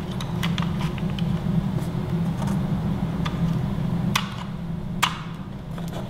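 Scattered plastic clicks and taps as two CR123A lithium batteries are handled and pressed into a smoke detector's plastic battery compartment, over a steady low hum. The two sharpest clicks come a little after four seconds in and at about five seconds.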